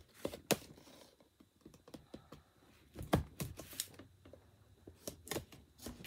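Scattered clicks and taps of fingers prying and handling a small cardboard toy box while trying to open it, with a cluster of sharper clicks about three seconds in.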